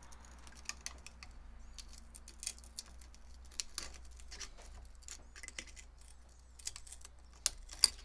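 Light, irregular metallic clicks and scrapes as a small screwdriver and fingers pry the wire retaining ring out of its groove at the top of a motorcycle fork's outer tube, with a sharper pair of clicks near the end.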